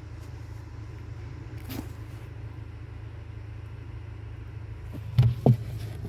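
A steady low hum, with a faint click about two seconds in and two sharp knocks a little after five seconds in, as parts are handled inside the freezer compartment.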